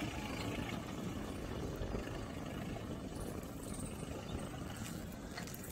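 Kubota MU4501 tractor's four-cylinder diesel engine running steadily as it pulls a loaded trailer.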